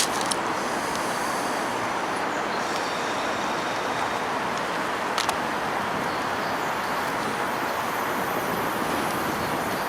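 Strong wind rushing steadily, with a couple of sharp clicks about five seconds apart.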